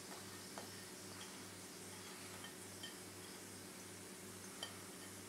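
A few faint, light clinks and taps of a small bowl against the rim of a stainless-steel mixing bowl as chopped onion is scraped out onto minced pork, over a low steady hum.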